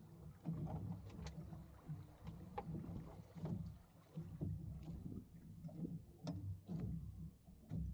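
Water lapping and slapping against a Sunfish sailboat's hull as it sails through light chop, an uneven low wash, with a few sharp clicks scattered through it.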